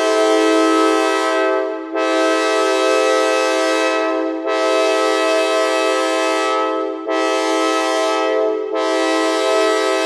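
Software synthesizer (AudioKit Synth One) holding a sawtooth-wave chord that imitates a multi-chime train horn. The chord briefly dips and sounds again four times, like repeated horn blasts.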